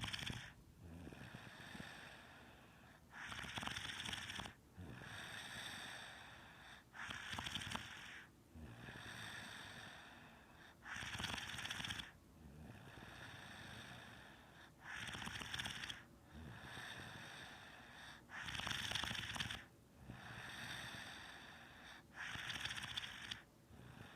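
Snoring in slow, regular breaths, about one every four seconds. Each breath has a short, louder, rasping part followed by a softer, longer part.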